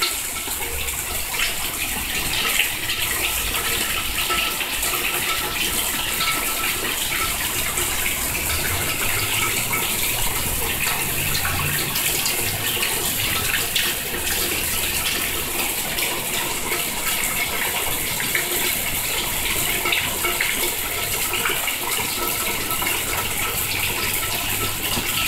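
Heavy rain falling steadily, with runoff pouring off the roof edge and splashing into a puddle.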